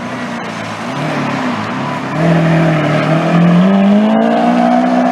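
Lamborghini Aventador SV Roadster's V12 engine accelerating as the car drives off, getting much louder about two seconds in and rising in pitch near the end.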